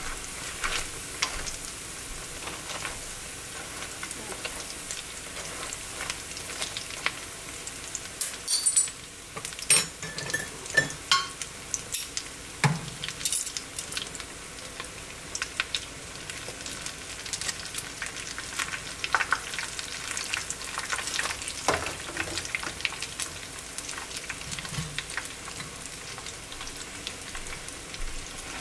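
Tempura-battered potato chops deep-frying in hot oil, nearly done: a steady sizzle full of small crackles and pops. A cluster of sharper clicks and knocks comes about nine to thirteen seconds in.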